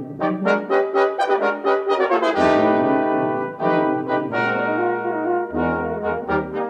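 Background music led by brass: a run of short, quick notes, then a long held chord from about two and a half seconds in, then short notes again near the end.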